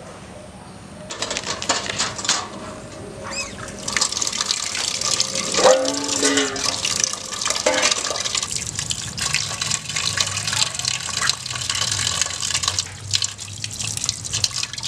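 Water from an outdoor tap pouring and splashing into a steel pot of boiled giant African snails as they are rinsed by hand, starting about a second in. A short pitched sound stands out about six seconds in.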